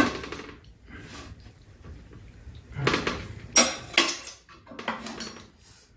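Dishes and utensils clinking and knocking on a large metal serving tray: a sharp knock as a bowl is set down, then a run of separate clinks about three to five seconds in as chopsticks and a spoon work in the bowls.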